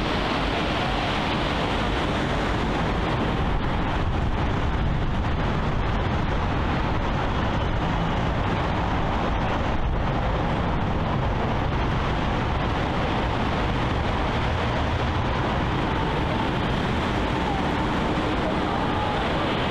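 Steady seaside ambience: a continuous rushing noise with a deep rumble underneath, unchanging throughout.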